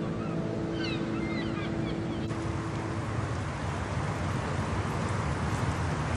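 A ship's horn holds a long low tone and fades out about three seconds in, with birds chirping over it during the first second or so. Then a steady hiss of open-air ambience follows.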